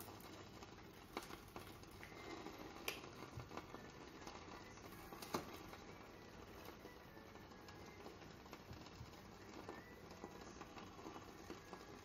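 Quiet, faint crackling of lamb and vegetables cooking in tare under the lid of a BRUNO hot plate. A few light knocks on the table, the loudest about five seconds in.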